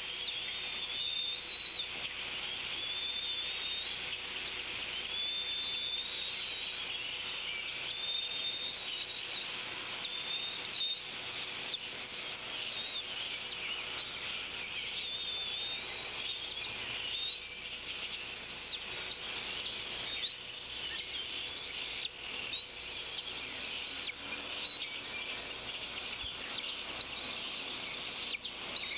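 Wild songbirds singing in the surrounding trees: overlapping whistled phrases that come again every couple of seconds, over a faint steady hum.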